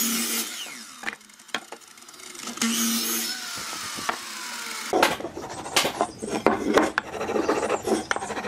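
A mitre saw's blade winding down after a cut, with a short second burst of saw noise around three seconds in. From about five seconds, a wooden marking gauge scratches along a pine board, an irregular scraping with small knocks of wood on wood.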